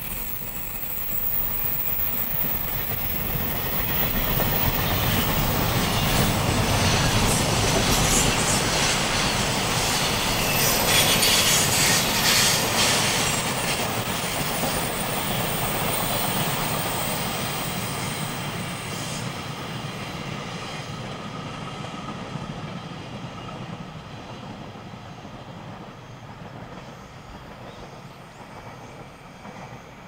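Long container freight train passing close by: its wagons' wheels running over the rails in a steady rumble with clatter, loudest around the middle, then fading as the last wagons draw away.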